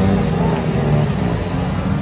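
Dense hubbub of a large crowd, many overlapping voices blending together over a steady low drone.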